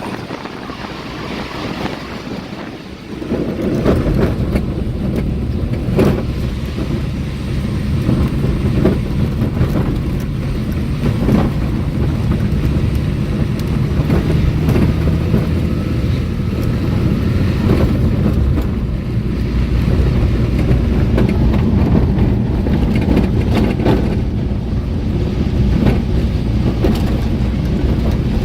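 Moving vehicle heard from on board: a steady low rumble of road and engine noise with wind on the microphone. It gets louder about three seconds in, with scattered short knocks throughout.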